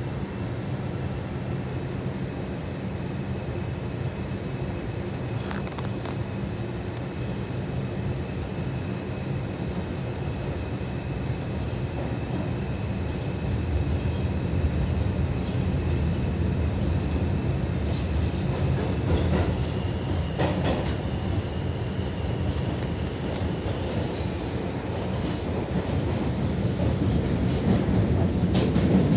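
R142 subway car running between stations, heard from inside the car: a steady rumble of wheels on the rails. It grows louder through the second half, with a few short clicks.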